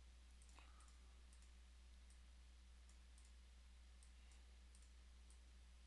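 Near silence: a low steady electrical hum with a few faint computer mouse clicks.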